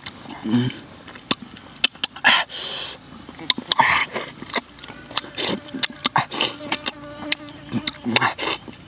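Close-up wet chewing and lip-smacking clicks, irregular, as a man eats cooked eel with his fingers. Insects sing steadily in the background.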